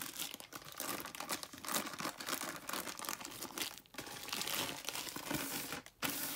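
Clear plastic wrapping crinkling and tearing as it is pulled off a poster tube, with brief pauses about four and six seconds in.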